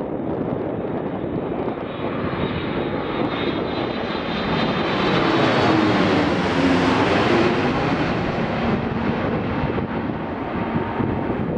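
Boeing 787-8 airliner's GEnx-1B turbofans at approach power as it passes low overhead with gear down on final approach. The jet rush swells to its loudest about halfway through, with a high fan whine building before the peak, then eases as the plane moves away.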